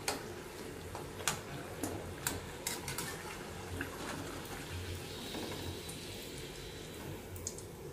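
Oil sizzling steadily as stuffed wheat-dough snacks deep-fry in an aluminium kadai, with a handful of light clicks from a slotted metal spatula against the pan in the first three seconds.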